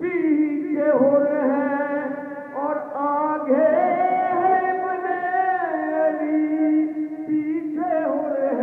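A man singing a devotional Sufi kalam into a microphone, in long held notes that slide from one pitch to the next.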